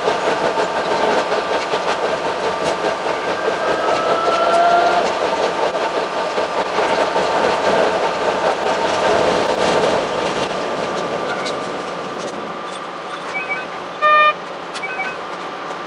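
Narrow-gauge electric railcar running, with nose-suspended traction motors, heard from the cab and sped up six times: a dense, fast rattle of wheels and motor noise that eases off after about ten seconds as the train slows into a station. About fourteen seconds in there is a short, loud tone, with a few small beeps around it.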